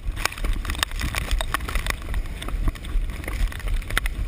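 Storm wind buffeting a GoPro in its waterproof housing, heard as a steady muffled low rumble, with irregular sharp clicks and knocks against the case.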